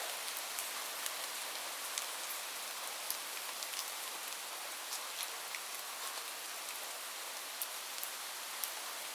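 Light rain falling steadily, a soft even hiss with scattered sharp drop ticks.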